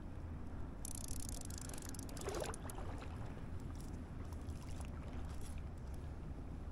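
Shallow river water lapping and trickling, under a steady low wind rumble on the microphone, with a brief stretch of brighter hiss about a second in.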